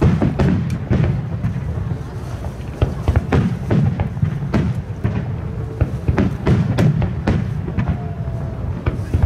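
Aerial firework shells bursting in quick succession: many sharp bangs, several in some seconds, over a steady low rumble.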